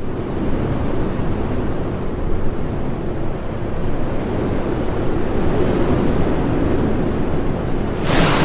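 Rushing, wind-like noise of a logo sound effect, holding steady, with a bright hissing whoosh swelling up near the end.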